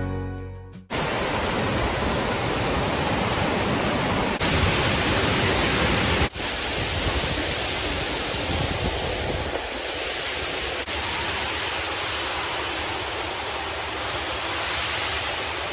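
Steady, even rushing of a waterfall's falling water. It changes abruptly twice, about four and six seconds in, as the footage cuts between takes.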